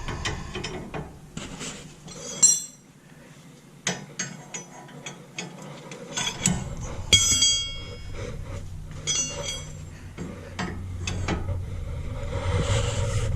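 Wrench working on the steering tie rod's jam nut: scattered metallic clicks and a few short ringing clinks as the tool meets the nut and rod.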